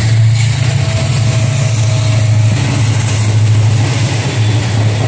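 EMD WDP-4 diesel locomotive (16-cylinder two-stroke 710 engine) running through a station at speed, a steady low engine drone over a loud rush of wheel and rail noise as its passenger coaches follow.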